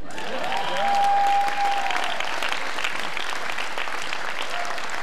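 Large convention audience applauding, a dense patter of many hands clapping, with one long high-pitched call held over it about a second in.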